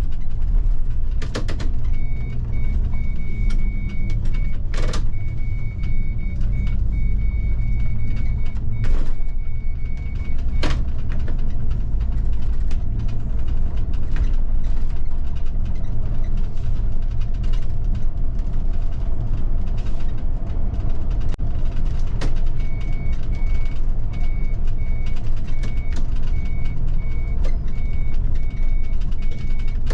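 Bus engine and road rumble heard from inside the driver's cab, with a few sharp knocks and rattles. A high electronic beep repeats rapidly through two stretches: from about two seconds in until ten seconds, and again from about twenty-three seconds in to the end.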